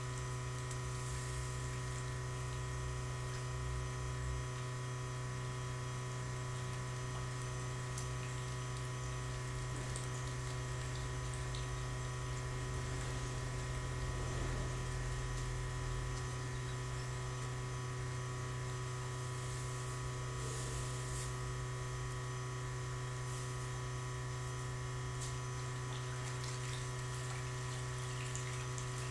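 Water sloshing and churning as densely stocked tilapia crowd at the surface of the pond, over a steady electric motor hum.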